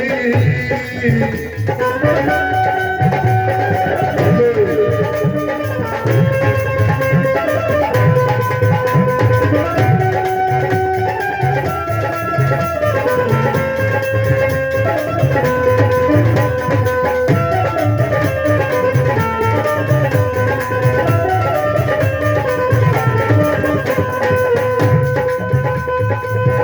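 Instrumental break in a live Punjabi folk song: a melody instrument plays held notes that step up and down over a steady hand-drum beat with a rattle.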